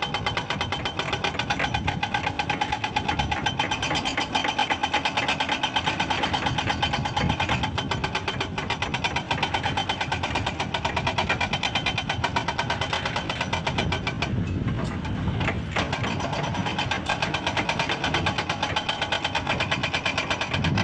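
Hydraulic crawler excavator's diesel engine running steadily, with a rapid, even pulsing throughout.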